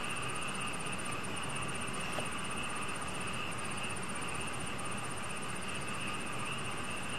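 Night-time insect chorus: a fast, high-pitched pulsing trill with brief breaks, over a steady shrill drone.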